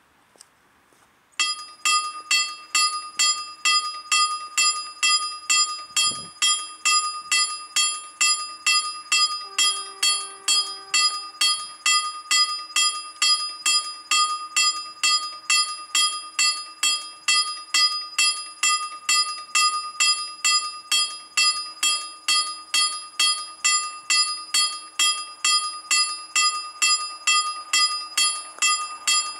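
KLD-4013 level-crossing warning bell starting about a second and a half in and ringing in even, rapid strokes, about two a second, each a high metallic ding that rings on. The crossing warning has switched on for an approaching train.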